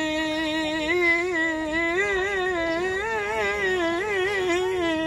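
A man singing a devotional song in praise of Ali (a manqabat) without accompaniment. He holds one long, steady note for about a second, then ornaments it with quick wavering turns that rise and fall, settling back toward the held note near the end.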